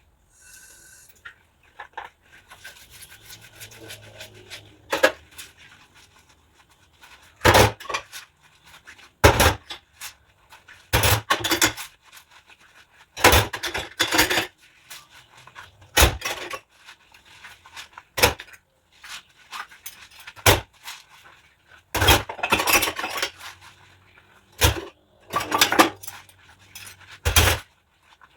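Dishes and cutlery clattering and scraping as they are handled during hand dishwashing: a run of separate sharp knocks and scrapes, one every second or two, after a quieter first few seconds.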